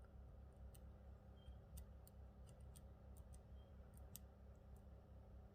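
Faint, irregular ticks and clicks of a lock pick working the pins of an Assa Ruko euro cylinder, on pin 2, which is caught in the plug's counter milling.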